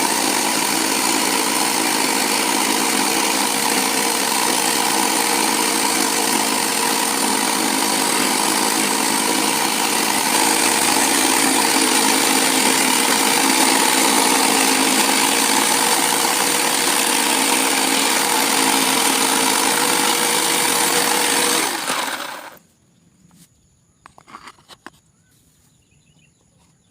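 Electric jigsaw running steadily, a dense buzz with a steady whine in it. It cuts off abruptly about 22 seconds in, followed by a few faint knocks and rustles.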